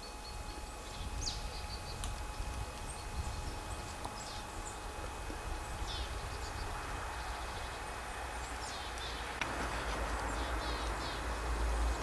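Small birds giving short, high chirps and thin calls at scattered moments, over a steady low rumble that grows louder in the last couple of seconds.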